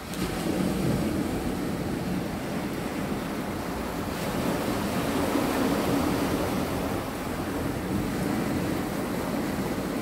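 Sea waves washing and breaking over flat layered rock ledges at the shore. It is a continuous surge that swells and ebbs, loudest about a second in and again around five to six seconds in.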